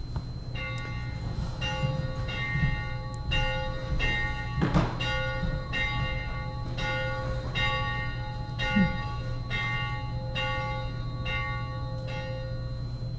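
A church bell struck over and over at about one stroke a second, each stroke ringing on into the next, over a steady low hum.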